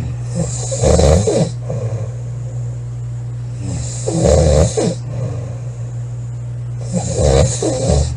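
A woman snoring loudly, three snores about three seconds apart, over a steady low hum.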